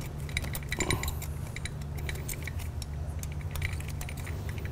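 Light, irregular metallic clicks and ticks as a brake pad pin is turned in by hand through a motorcycle brake caliper and its pads, over a steady low hum.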